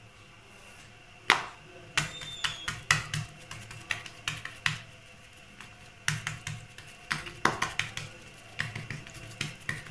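Fingers and palm patting coiled wheat parotta dough flat on a granite countertop: sharp slapping taps in quick runs of several, with short pauses between runs.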